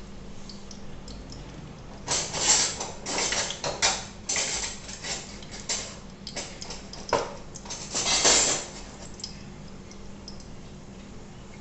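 Kitchen utensils and pans being handled, clattering and scraping in irregular bursts for several seconds, over a steady low hum.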